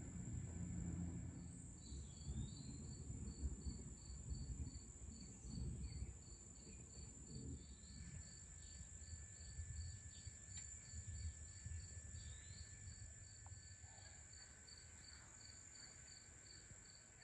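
Faint outdoor insect chorus: crickets chirping in an even rhythm a few times a second over a steady high-pitched insect trill, with a low rumble that dies away over the first half.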